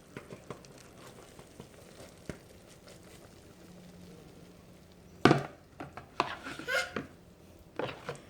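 A spoon scraping and knocking against a bowl as thick cooked milk-cake mixture is scooped out onto a plate. A few faint ticks come first, then a loud scrape about five seconds in, followed by several shorter scrapes and knocks.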